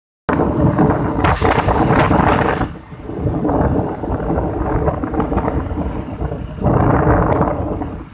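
Wind buffeting the microphone of a moving vehicle, with a faint steady engine hum underneath. The gusts are loudest for the first few seconds and again about two thirds of the way through.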